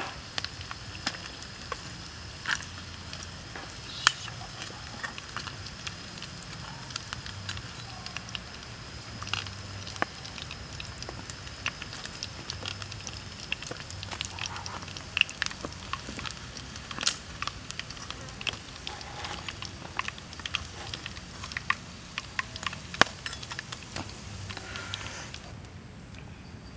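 Hot oil sizzling and popping as chicken wings deep-fry in a wok over a wood fire, with scattered sharp crackles. The sizzle drops away about 25 seconds in.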